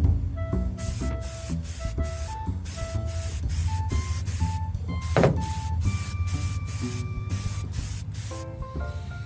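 Background music with a melody, over a quick run of short hisses from an aerosol spray-paint can applying olive drab paint in passes. A knock with a short ring comes about five seconds in.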